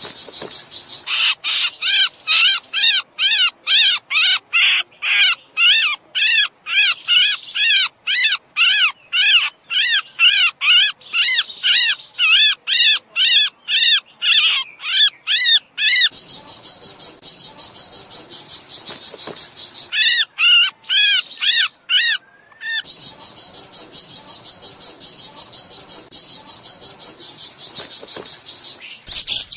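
Sooty-headed bulbul (kutilang) lure calls in the excited breeding-condition ('birahi') style used to draw small birds in: a long run of quick, repeated arching chirps. About halfway through they give way to a fast, high, buzzing trill, broken by a short run of chirps about two-thirds through.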